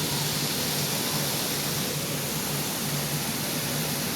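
Heavy thunderstorm rain pouring down, a steady, even hiss.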